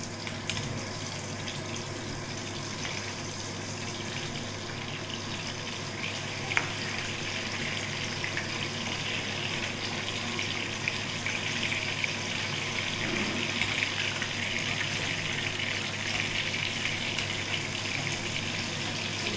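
Battered chillies (mirchi bajji) frying in hot oil: a steady sizzle with small crackles that grows louder about six seconds in, with one sharp click around then.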